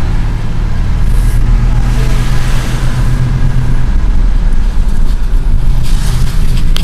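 Road noise inside a moving car's cabin: a steady low engine and road drone, with tyre hiss from the wet road.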